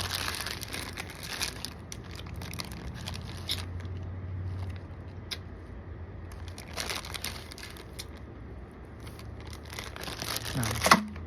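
Plastic packaging crinkling and rustling in separate bursts as parts are handled out of a motorized bicycle engine kit box, loudest near the end, over a low steady hum.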